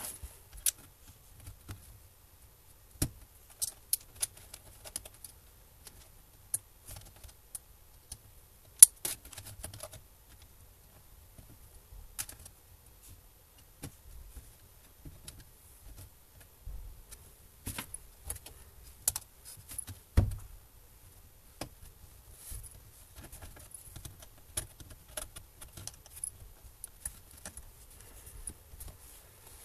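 Irregular clicks, taps and small clatters of a screwdriver and hands working on an Acer Aspire V3-771G laptop's opened underside, with a sharp click about nine seconds in and a dull thump about twenty seconds in.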